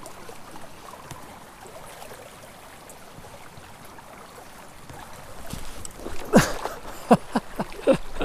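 Shallow mountain creek running steadily over rocks. In the last few seconds come several louder splashes as a wader steps through the water.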